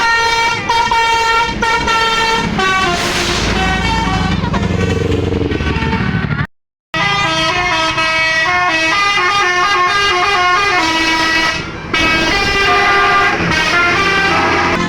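Bus 'telolet basuri' musical horn, a set of tuned air horns playing a loud, continuous melody that steps from note to note with several notes sounding together. The sound cuts out completely for a moment about halfway through.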